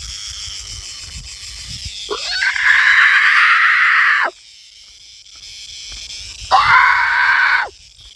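A man's loud open-mouthed scream, given twice as a mock-predator roar. The first runs about two seconds and rises in pitch at its start; the second, about a second long, comes near the end. A chorus of cicadas buzzes faintly behind.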